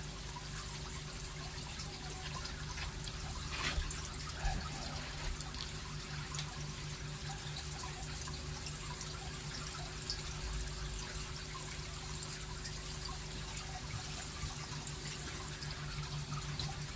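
Water trickling and lightly splashing in a shallow koi grading tray, with a few small splashes around four seconds in, over a steady low hum.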